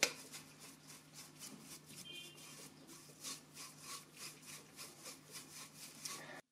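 Faint, rhythmic swishing of a soft brush rubbed back and forth over an edge freshly covered with imitation gold (brass) leaf, brushing off the loose excess leaf.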